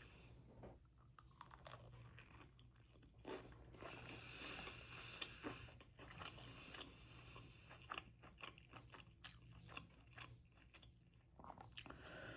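Faint crunching and chewing as a fried chicken tender is bitten and eaten, with many small scattered crunches over a low steady hum.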